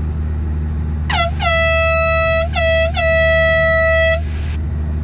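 A horn sounds three times, a short blast and then two long ones, each beginning with a brief downward slide in pitch. Underneath it a steady low engine drone runs on.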